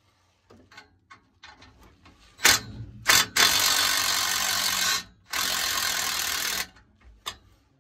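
Cordless DeWalt power tool running a socket on an exhaust header collector bolt, in two loud bursts of about a second and a half and just over a second with a short break between. Light metal clicks and a sharp clack come before the first burst.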